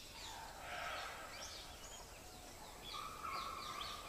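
Forest ambience: many small birds chirping in quick, repeated, falling notes. A steady whistle-like tone joins about three seconds in.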